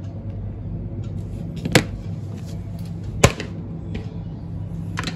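Two sharp clicks about a second and a half apart, from the circuit board and plastic pin-connector housing of a motorcycle digital speedometer being worked apart, over a steady low hum.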